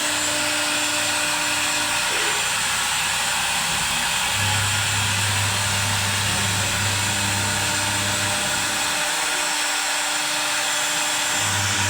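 CNC wood router running with a steady, even rushing noise while it is set up and checked before cutting. A low hum from the machine comes in about four seconds in, stops a little before nine seconds, and returns near the end.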